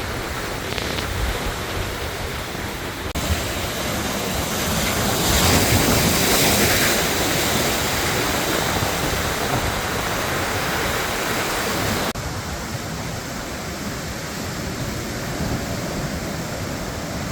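Rough sea surf breaking and washing on the beach, with wind buffeting the microphone. The noise swells louder for a few seconds in the middle, and it jumps abruptly about three seconds and twelve seconds in.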